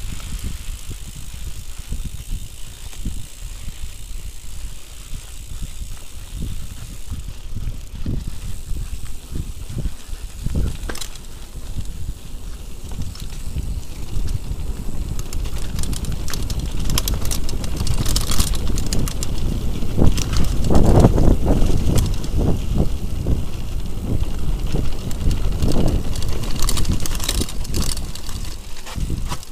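Mountain bike riding fast down a rocky dirt trail, heard from the handlebars: a steady low rumble of tyres on the ground, with clatter and rattling from the bike over loose stones. The rattling gets louder and busier about halfway through, then eases near the end.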